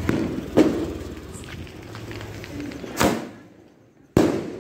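Firecrackers going off: three sharp bangs, about half a second in, about three seconds in and near the end, each fading away after.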